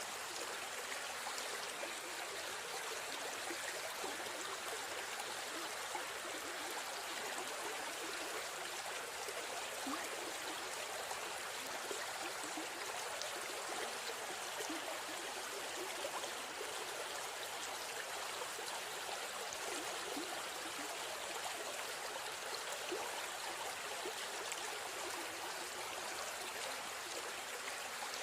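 River stream running steadily, with a constant rush of water and small splashing trickles throughout.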